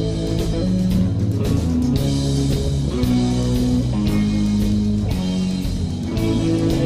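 Live rock band playing an instrumental passage of a slow song: held guitar notes that change every second or so over low sustained notes.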